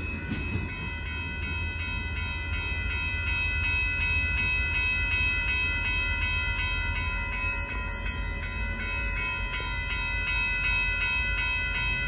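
Railroad crossing bell ringing steadily with quick, even strikes, about three a second, over a train's low rumble.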